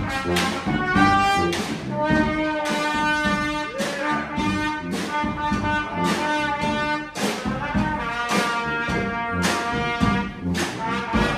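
Street brass band playing live: trumpets, trombones and other horns holding and changing sustained notes over regular drum hits.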